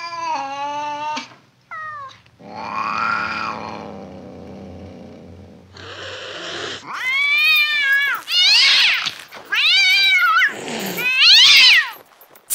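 Cat yowling and meowing over and over in long cries that rise and fall, louder toward the end, with a short hissing noise about six seconds in.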